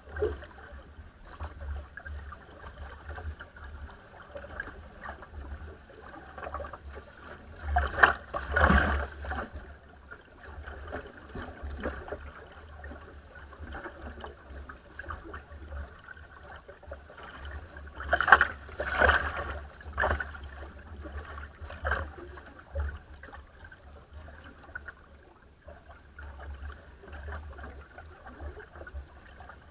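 Water rushing and slapping along the bow of a small wooden sailing dinghy under way in a chop. Two louder splashes of waves and spray against the bow come about eight and eighteen seconds in.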